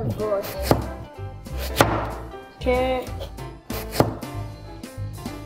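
Chef's knife cutting through a raw peeled potato and knocking down onto a plastic cutting board, three slow, sharp strokes about a second or two apart.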